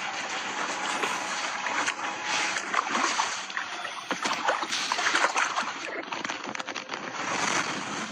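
Water splashing and sloshing, with many irregular sharp splashes.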